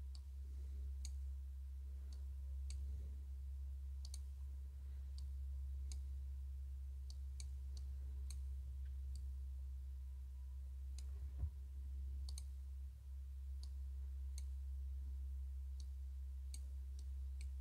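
Computer mouse buttons clicking at irregular intervals while files are dragged into tracks, over a steady low hum, with one soft knock about two-thirds of the way through.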